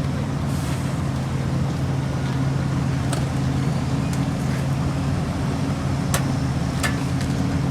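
Diesel engine of heavy road-paving machinery running steadily at a constant speed, with a few sharp metallic clicks.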